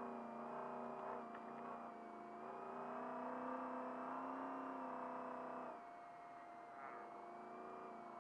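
Trophy truck's engine running under load at speed, heard from inside the cab, its note rising slightly and then dropping off sharply about six seconds in as the throttle eases. A steady high whine runs under it throughout.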